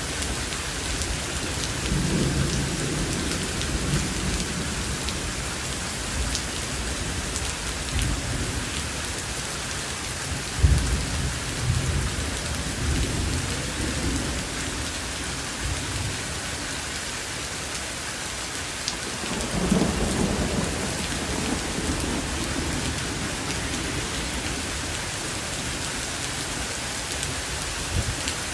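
Heavy rain falling steadily on lawn and pavement in a thunderstorm, with low rolls of thunder rumbling a couple of seconds in, about ten seconds in (the loudest), and again about twenty seconds in.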